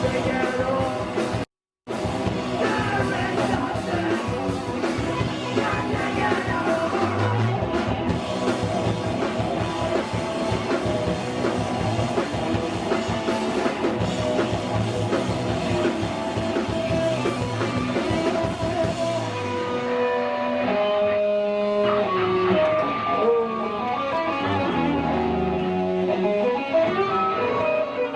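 Hardcore punk band playing live: loud distorted electric guitars over a drum kit, cut by a brief dropout to silence near the start. About two-thirds of the way through the cymbal-heavy full-band sound falls away, leaving held and bending guitar notes.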